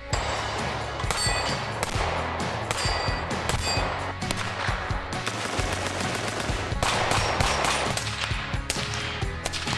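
Gunshots from handguns and rifles fired in quick succession, over background music.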